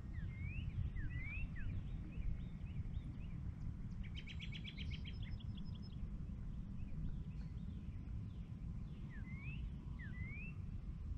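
Wild birds calling: pairs of quick rising whistled notes near the start and again near the end, and a fast run of about ten sharp notes around four seconds in. Under them is a steady low rumble.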